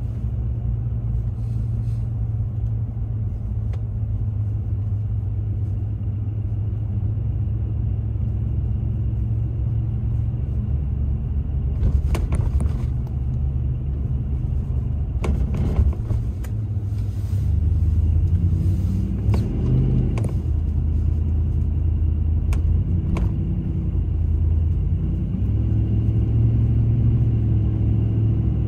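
Car driving slowly, heard from inside the cabin: a steady low engine and road rumble, with the engine note rising and falling a few times in the second half as the car speeds up and slows. A few short knocks break in now and then.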